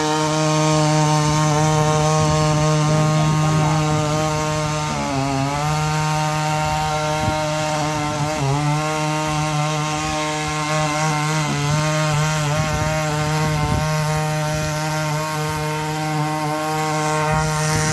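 Neptune NC63 3 HP mini power tiller's small petrol engine running steadily under load as it tills soil, its pitch dipping briefly twice, about five seconds in and again about three seconds later.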